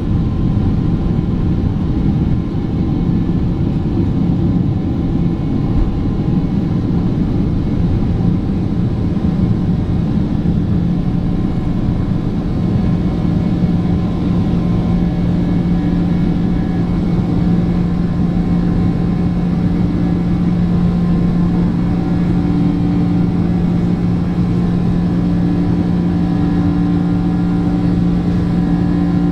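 Boeing 767-400ER's twin jet engines and rushing air heard inside the cabin: a loud, steady roar with a deep rumble, and a steady engine hum that grows clearer about halfway through.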